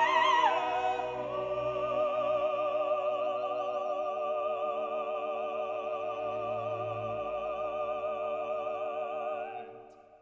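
Classical soundtrack music, operatic in style: long held notes with a wavering vibrato, fading out near the end.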